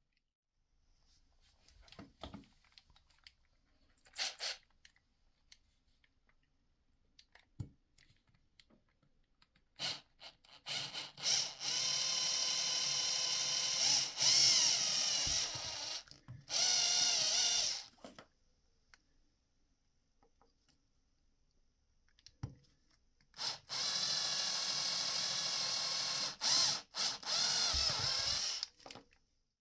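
Electric drill with a thin twist bit boring pilot holes into PVC end caps, in two long spells of drilling, one per cap, each broken by short stops as the trigger is released. A few light clicks of handling come before the first spell.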